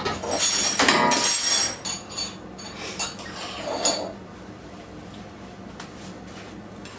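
Kitchen dishes and utensils clattering and clinking, with short metallic rings, for about the first four seconds; then it goes quiet apart from a low steady hum.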